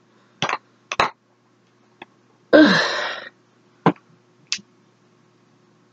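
A few light clicks and taps from lip gloss tubes being handled and opened. About two and a half seconds in comes one short breathy sound from the voice, falling in pitch.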